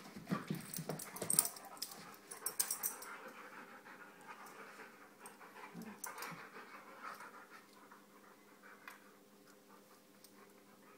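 Two dogs play-wrestling, panting and scuffling, busiest in the first three seconds and quieter after.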